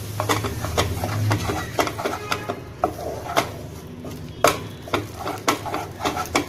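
Wooden spatula stirring and scraping soybean flour into just-boiled water in a pan, knocking against the pan in irregular clicks and taps as the dough is mixed.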